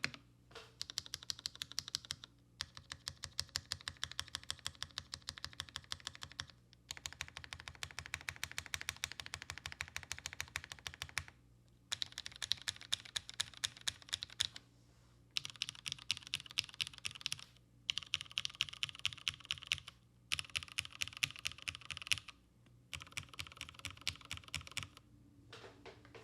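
Typing on a custom mechanical keyboard with vintage Cherry MX Black linear switches on a top-mount aluminium plate, under PBT keycaps: fast runs of keystrokes with short pauses every few seconds.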